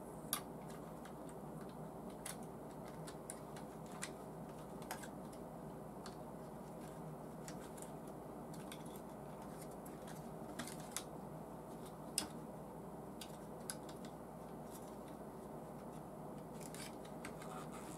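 Scattered light plastic clicks and taps from small parts being handled and fitted into the clear plastic cylinder head of a model V8 engine kit, about a dozen at irregular intervals, with the sharpest about twelve seconds in. A steady low hum runs underneath.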